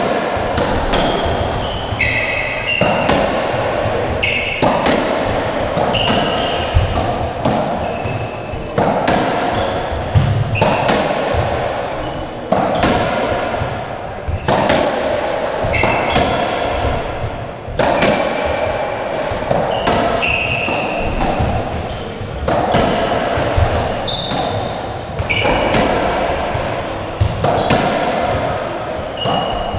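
Racketball rally on a squash court: the ball smacks off rackets and walls again and again, about one hit every second or two, each ringing in the enclosed court. Short high shoe squeaks on the wooden floor come between the hits.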